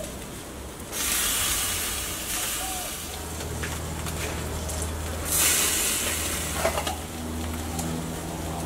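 Octopus and marinated meat sizzling on a charcoal grill, with two louder surges of hissing, about a second in and again around five seconds in. A low steady hum joins about three seconds in.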